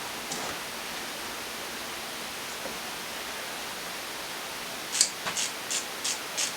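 A ratchet wrench clicking in short strokes, about three a second, as engine mounting bolts are worked loose. It starts about five seconds in, over a steady hiss.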